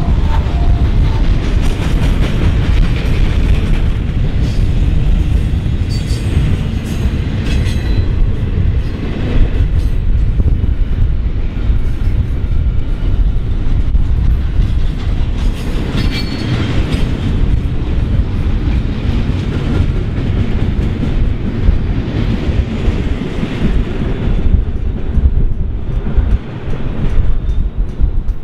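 Double-stack container freight train rolling steadily past, its railcars rumbling and the wheels clacking over the rail joints, with a few sharper clacks now and then.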